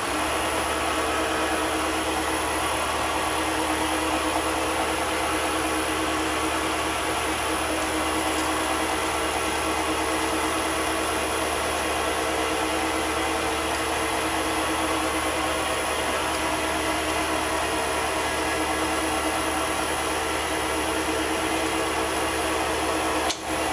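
Small Chinese mini metal lathe running steadily, its motor and spindle giving a constant hum with a high whine, while a centre drill in the tailstock is fed into the steel workpiece to spot the hole before a 19 mm drill. The sound dips briefly near the end.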